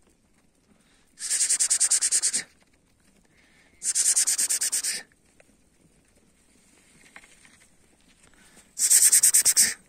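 A person's rapid, rattling hiss made with the mouth, three times, about a second each, a herder's call to bring a shepherd dog.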